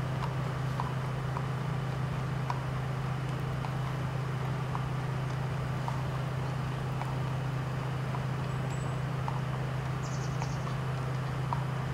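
A steady low hum, with faint irregular clicks and small knocks scattered through it and a brief crackle about ten seconds in.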